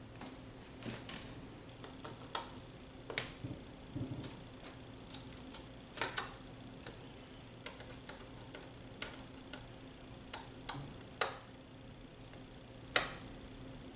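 Irregular small clicks and taps of a micro Phillips screwdriver backing out the tiny screws that hold a laptop's LCD panel, with the plastic screen frame being handled; two sharper clicks stand out near the end.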